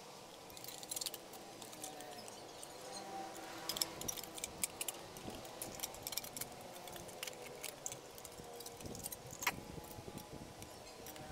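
Light metallic clinks and rattles from the thin aluminium parts of an electric rice cooker being handled: scattered sharp ticks throughout, with a louder click about nine and a half seconds in.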